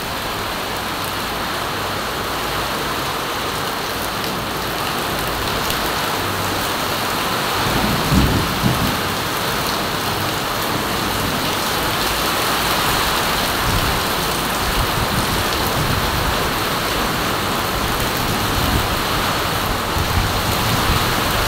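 Heavy rain pouring down steadily onto concrete and roofing, growing a little heavier over the stretch, with a brief low rumble about eight seconds in.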